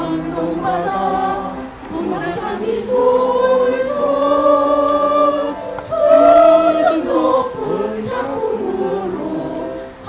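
A roomful of people singing an association song together in unison, holding long notes.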